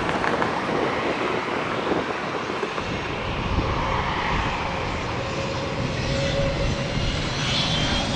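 Jet engines of a twin rear-engine airliner at low thrust on the runway: a steady rumble with a faint whine. Near the end a high whine starts rising as the engines begin to spool up for takeoff.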